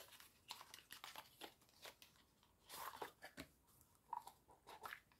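Faint rustling, crinkling and small clicks of hands handling small jewellery packaging while unwrapping a ring.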